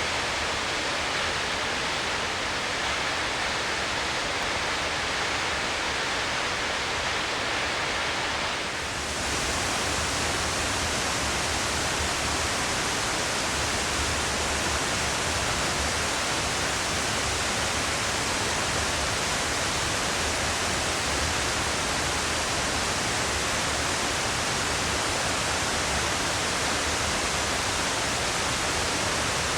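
Waterfall: a steady, full rush of falling water, with a brief dip and a shift in tone about nine seconds in.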